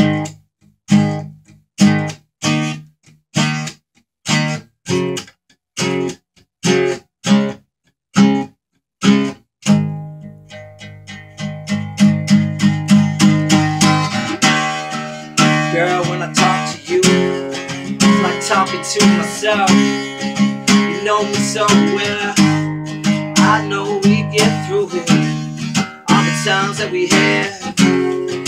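Acoustic guitar strummed: for the first ten seconds or so, a series of short, separate chords, each cut off before the next, then continuous rhythmic strumming.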